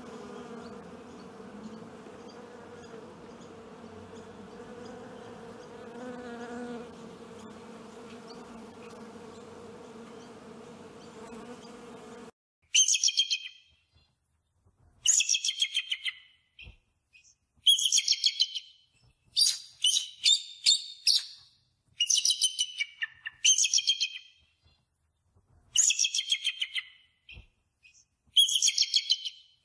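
Wasps buzzing steadily around their open paper comb nest. About twelve seconds in, this cuts off suddenly and a bald eagle takes over, calling repeatedly: bouts of high, rapid, chattering notes about a second long, coming roughly every two seconds.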